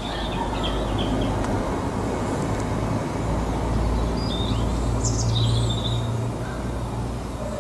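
Steady low background rumble, with a few short, high bird chirps near the start and again around four to six seconds in.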